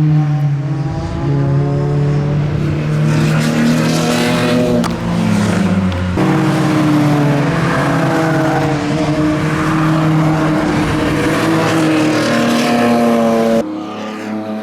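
Tuned BMW E46 M3's S54 straight-six engine under hard acceleration, its induction noise prominent, pitch climbing through each gear and dropping at the shifts. The sound steps down to a quieter level near the end.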